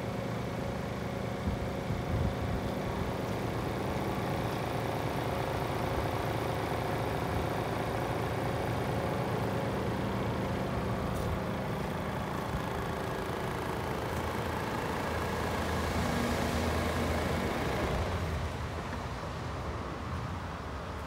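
DAF CF440 truck's Paccar six-cylinder diesel engine idling steadily, heard from behind the cab, becoming a little quieter near the end.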